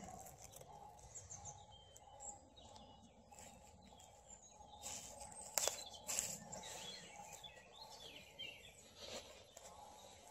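Quiet outdoor ambience: faint birds chirping, with footsteps on leaf litter and twigs giving a few short clicks and rustles, the loudest about halfway through.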